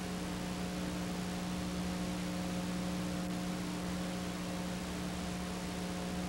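Steady hiss with a constant low hum and a few faint steady tones above it, unchanging throughout: the background noise of a soundtrack with no recorded sound.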